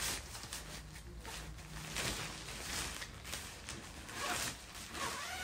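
Zipper of a fabric tent carry bag being pulled open in several short runs, with handling noise from the bag as it is opened.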